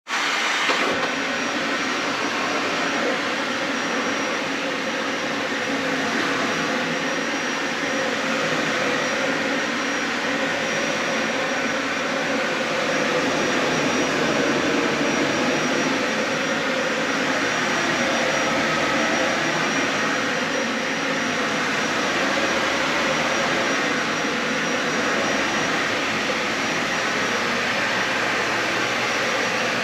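Dyson Ball Animal 3 upright vacuum cleaner running steadily, with a faint high whine held throughout.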